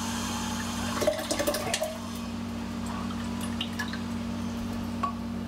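Evaporated milk pouring from a tipped can into a glass blender jar of coconut milk, with a few short clicks about a second in.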